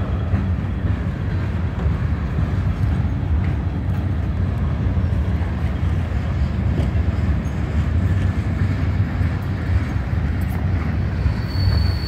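Freight train cars rolling past: a steady low rumble of steel wheels running on the rails.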